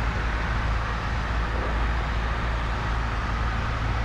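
Steady drone of a single-engine Cessna's engine and propeller with rushing airflow, heard inside the cockpit in flight on final approach.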